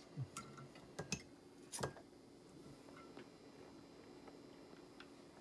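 A few light clicks and ticks from turning a digital oscilloscope's time-base knob, over a faint steady hum.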